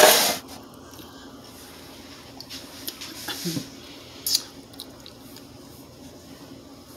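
A loud rustling noise cuts off about half a second in. After it there is a quiet room with a faint steady low hum, and a few soft sips and a click around the middle as a thick fruit shake is drunk through a straw.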